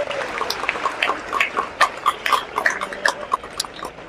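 Congregation applauding: many irregular hand claps that thin out near the end.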